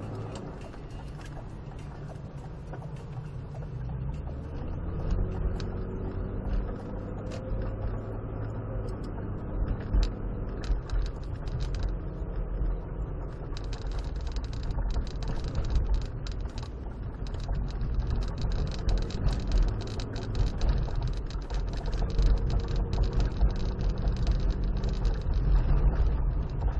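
A car's engine and road noise heard from inside the cabin while driving, a heavy low rumble that grows louder in the second half. Frequent small rattles and knocks sound through it.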